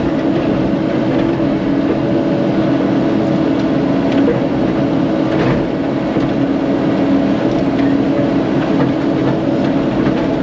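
Caterpillar 308 mini excavator's diesel engine idling at a steady pitch, with a few faint clicks. The machine's idle has been dropping and surging on its own, a fault the operator cannot explain.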